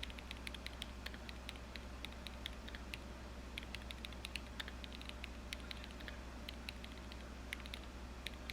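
Typing on an Angry Miao Cyberboard mechanical keyboard, which has a silicone mute mount between PCB and plate: a quick, irregular run of faint key clicks from the board's typing sound test.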